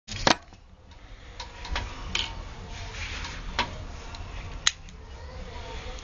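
Lock picks working in a five-pin Master Lock padlock: scattered small metallic clicks and light scraping over a low handling rumble. There is a sharp click right at the start and another about three-quarters of the way through.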